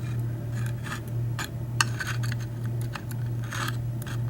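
Small metal lock parts being handled while a Schlage KIK cylinder is taken apart: light metallic clicks and short scrapes as driver pins and springs are worked out of the cylinder, over a steady low hum.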